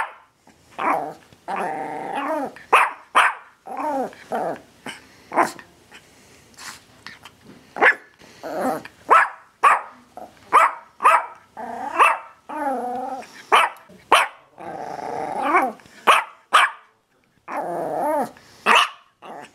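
A dog barking again and again in irregular bursts: short sharp barks mixed with longer, drawn-out growling barks.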